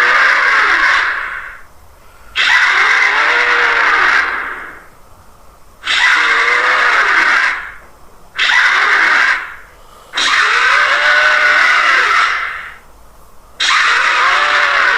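Giant sea snake monster roar sound effect in a distorted, altered version, repeated about six times. Each call is a harsh, raspy screech of one to two seconds whose pitch rises then falls, with short gaps between calls.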